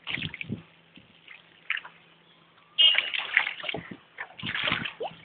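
Floodwater sloshing and splashing against a boat in irregular bursts, loudest about three seconds in.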